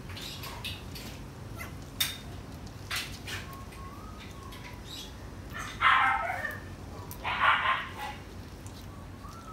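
A dog calls out twice in short loud bursts, about six and seven and a half seconds in, after a few sharp clicks earlier on.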